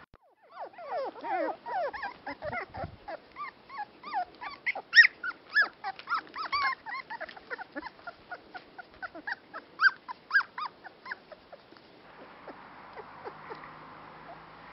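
Dandie Dinmont Terrier puppies squealing as they play-fight, a rapid string of short high-pitched squeaks and yelps that stops about eleven seconds in.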